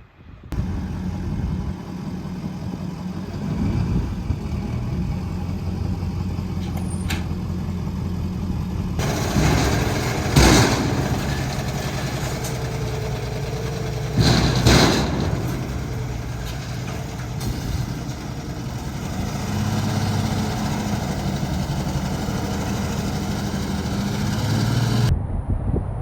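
A vehicle engine running steadily with a low hum, with two brief louder bursts about ten and fifteen seconds in; it cuts off suddenly about a second before the end.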